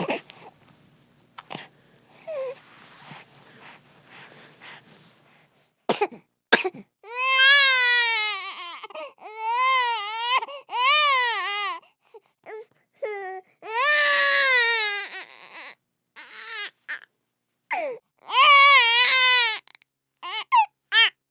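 A baby crying: a few seconds of quiet fussing and breathing, then sharp gasping in-breaths about six seconds in, followed by long, wavering wails separated by short pauses for breath.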